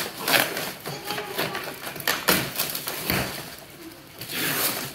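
Brown kraft packing paper rustling and tearing in short bursts as it is pulled off a cardboard box, with a longer rustle near the end.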